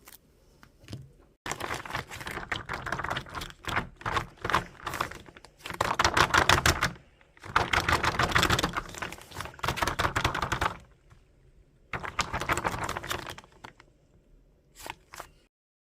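Slime being squeezed and pressed by hand, making rapid wet crackling clicks in about seven bursts of one to two seconds each, separated by short pauses, with a few lone clicks near the end.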